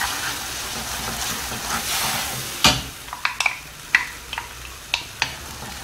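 Wooden spoon stirring a thick cream sauce in a hot nonstick frying pan, with a soft sizzle, for about the first two and a half seconds; then a sharp click followed by a run of light, separate clicks and taps.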